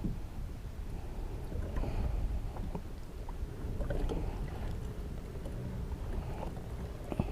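Water lapping against a fishing kayak's hull, with low wind rumble on the microphone and a few small knocks and clicks.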